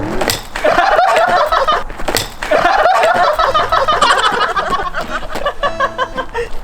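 Several people laughing hard, with two sharp knocks about two seconds apart near the start.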